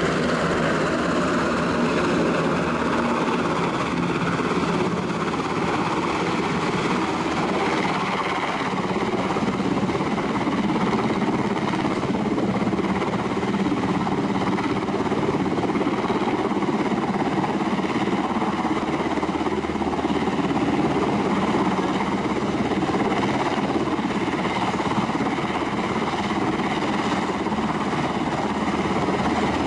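UH-60J rescue helicopter hovering, its turbine engines and rotor running in a steady, unbroken rush of noise.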